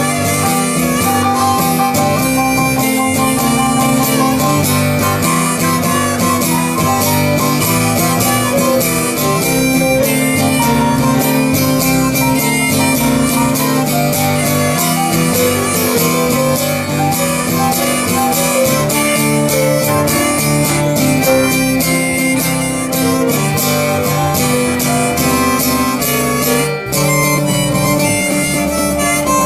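Blues instrumental: two fiddles playing sustained melody lines over acoustic guitar and bass, continuous band music without singing.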